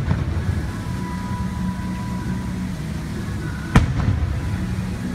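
An aerial firework shell bursting with a single sharp bang about four seconds in, followed by a short echoing rumble, over a steady bed of show music.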